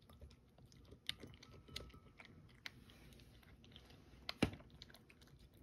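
A cat chewing and crunching crunchy dried fish pieces from a bowl: faint, irregular crunches and clicks, with one louder click about four and a half seconds in.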